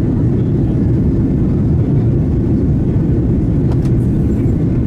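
Steady low cabin noise of an Airbus A330-200 airliner in flight, heard from a seat in the economy cabin: engine and airflow sound with no pauses. A couple of faint clicks come a little before the end.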